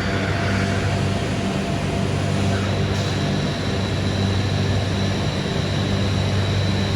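Biesse Skill CNC machining centre running: a steady low machine hum, with a high steady whine joining in about three seconds in.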